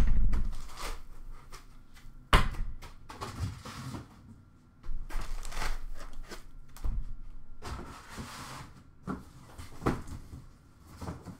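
Knocks, bumps and scraping as a cardboard hobby box is worked out of its black foam packing insert and set down on a counter, with sharp knocks near the start and about two seconds in.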